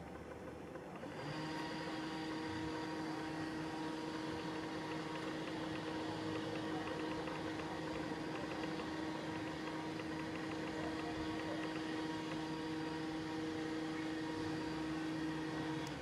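A steady machine hum with a clear, unchanging pitch starts about a second in and cuts off suddenly near the end.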